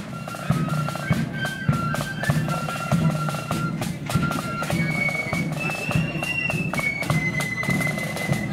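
Marching flute band playing a tune, the flutes carrying a shrill melody over steady snare and bass drum beats.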